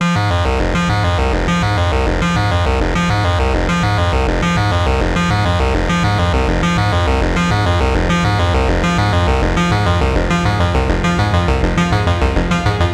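Electronic trip-hop music: a synthesizer track with a repeating bass figure that steps downward about once a second, over a regular beat that grows more pronounced near the end.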